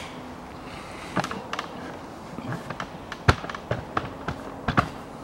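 Tools and car parts clicking and knocking as they are handled at a wheel hub: scattered single knocks, the sharpest about three seconds in and a close pair near the end.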